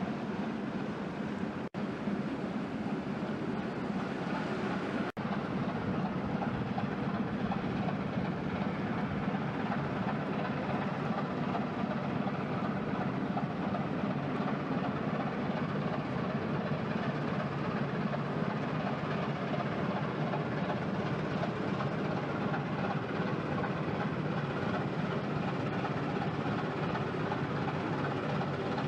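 Inland cargo barge's diesel engine droning steadily as the vessel passes on the river. The sound cuts out for an instant twice in the first five seconds.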